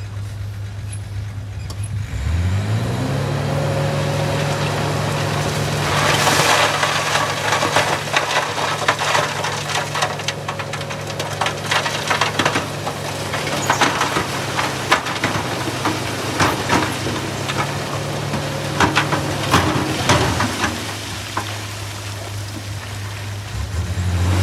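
A Shacman dump truck's diesel engine revving up about two seconds in and holding high revs while the hydraulic hoist raises the tipper bed, easing back near the end. From about six seconds in, broken rock slides out of the bed and clatters and knocks down onto the pile.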